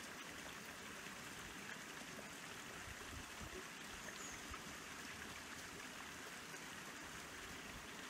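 A small woodland stream flowing steadily, a constant even rush of water.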